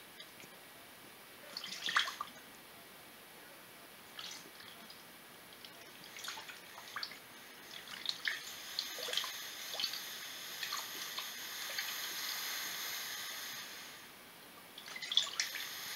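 Coolant being poured into a Polaris two-stroke 400 ATV engine's cooling system with the air bleeder screw open. Scattered drips and splashes come first, then a steady pouring hiss for several seconds in the second half, as the system is filled and air is bled out.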